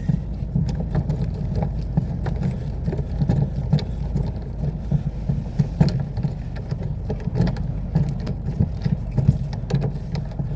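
Irregular knocks and clicks of hand work on a car wheel during a tire change, as the wheel is worked loose, over a steady low rumble.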